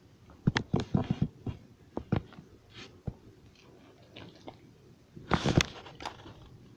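Cheese balls being crunched and chewed close to the microphone, in bursts of crisp crunches: one about half a second in, a couple around two seconds, and another just after five seconds.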